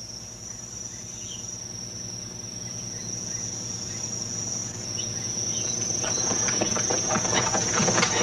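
Insects chirring in one steady high-pitched trill. From about six seconds in, a growing patter of clicks and rustling builds up beneath it.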